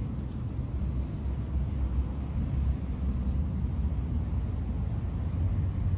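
Fluctuating low rumble of wind buffeting the microphone, with a few faint clicks of leafy stems being stripped by hand.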